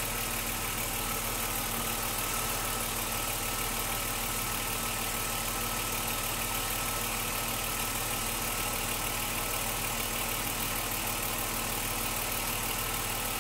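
BMW M52 straight-six engine idling steadily, heard from beneath the car by the oil pan. It is running quietly and evenly on freshly changed oil, with no hydraulic lifter tick.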